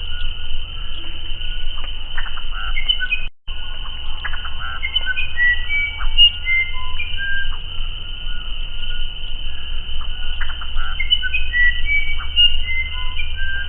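Musician wren (uirapuru) singing: a string of short, clear whistled notes, each pitched differently, with brief rattling notes between them and a steady insect drone behind. The sound cuts out completely for a moment about three and a half seconds in.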